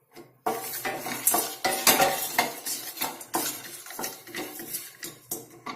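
Spatula stirring pounded pieces of dried turmeric root as they dry-roast in a pan, the hard pieces clattering and scraping against the pan in a dense irregular rattle that starts about half a second in.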